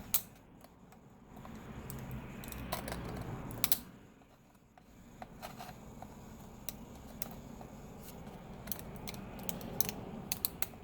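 Small clicks and taps of tweezers and fingers working inside an opened laptop, with a stretch of soft rustling or scraping about two to four seconds in.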